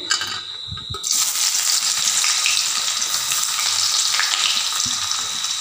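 Finely chopped onion tipped into hot mustard oil and cumin seeds in a kadhai, breaking into a steady sizzle that starts suddenly about a second in.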